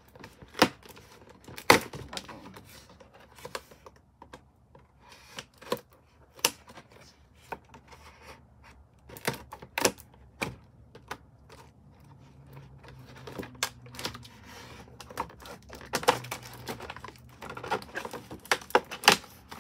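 Cardboard-and-plastic doll box being handled and opened: irregular sharp taps, clicks and crinkles, with a couple of loud knocks in the first two seconds and a quick run of clicks near the end.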